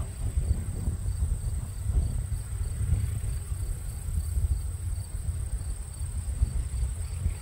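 Insects in the grass: a steady high buzz with regular chirping, over a low, uneven rumble.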